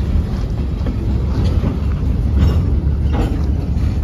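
Empty Norfolk & Western open-top freight cars rolling past on the rails: a steady low rumble with a few sharp wheel clacks over the rail joints.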